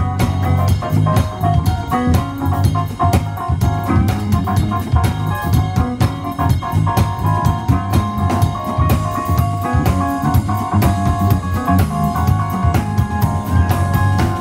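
Live jazz-fusion band playing: electric guitar and keyboard lines over electric bass and a busy drum kit, with quick, dense drum strokes throughout.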